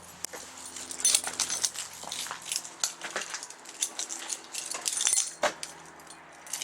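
A bunch of keys jangling and clinking in a hand: a run of small metallic clinks, with brighter jingles about a second in and again around five seconds.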